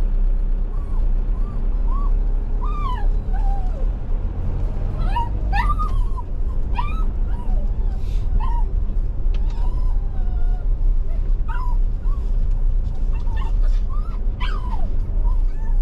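A dog whining and yipping in short high whimpers, over and over, with a steady low rumble underneath.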